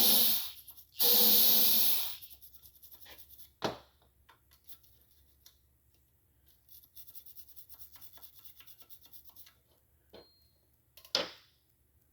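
Aerosol carb cleaner sprayed in two bursts, then a small brush scrubbing out a freshly tapped pin hole in a cast-iron engine block, a faint rapid scratching with a sharp knock a few seconds in and another short spray near the end.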